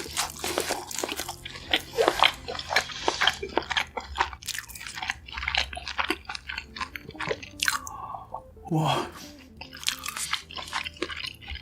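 Close-miked crunching and chewing of food in the mouth: a rapid, uneven run of sharp crunchy crackles, with a brief exclamation near the end.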